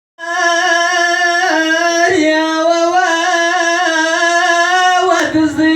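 A single voice singing long, held notes with a slight vibrato, stepping down in pitch twice and briefly breaking near the end.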